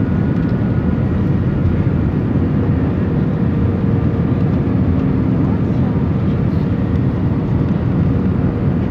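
Steady cabin noise inside an Airbus A320 airliner on approach: engine and airflow noise heard from a window seat over the wing, with a faint steady whine over it.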